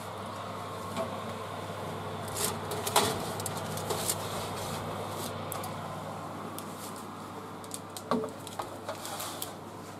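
Open electric oven's fan whirring steadily while a metal baking tray is drawn off the oven rack, with knocks and clanks; the loudest clank comes about three seconds in, and the tray is set down with a clatter about eight seconds in.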